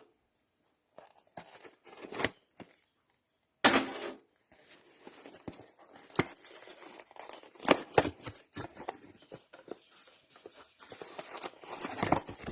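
A box of spare parts being opened by hand: packaging tearing and crinkling, with scattered sharp clicks and a louder snap about four seconds in, then steady rustling that gets busier near the end.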